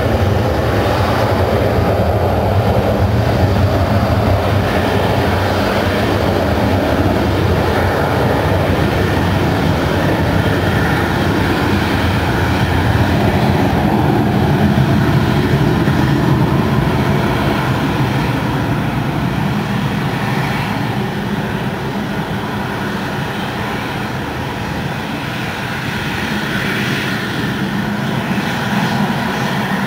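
Jet engines of a small rear-engined trijet running at takeoff power as it rolls down the runway and lifts off: a steady, loud, low-pitched roar that eases off in the second half as the aircraft pulls away.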